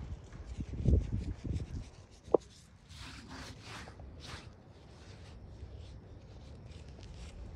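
Salt sprinkled by hand onto a raw rack of ribs, the grains pattering onto the meat and wooden board in soft hissing showers with fine ticks. A few soft thumps come in the first two seconds, and there is one short sharp sound a little after two seconds.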